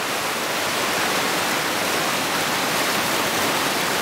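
River whitewater rapid rushing over rocks: a steady, even rush of water.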